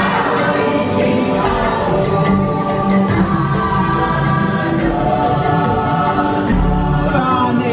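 Choir-like voices singing and chanting over instrumental music: the dark boat ride's own soundtrack, heard continuously.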